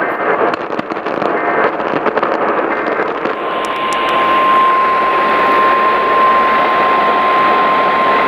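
Emergency Alert System signalling over a hissing, crackling radio channel: short data-header bursts, then a little over three seconds in a single steady alert tone begins and holds. It is the NOAA Weather Radio warning alarm tone that comes before a weather warning.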